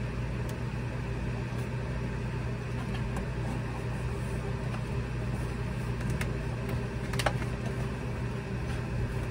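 Steady low mechanical hum of a running machine, unchanging throughout, with a few light ticks, the sharpest about seven seconds in.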